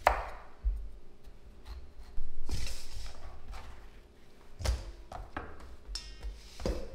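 A knife chopping zucchini on a wooden cutting board, heard as separate knocks. About two seconds in, a stainless steel mixing bowl is set down on the stone counter and rings, fading over a couple of seconds. Near the end, zucchini pieces drop into the steel bowl.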